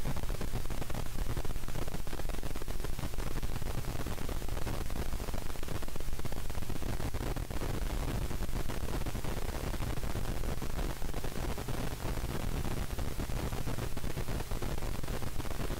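Jet airliner cabin noise while taxiing: a steady low rumble with a hiss over it, from the turbofan engines and the plane rolling along the taxiway.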